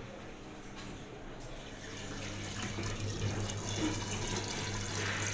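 LG direct-drive washing machine drawing water in to fill, a steady rush of water with a low steady hum under it that grows stronger about two seconds in.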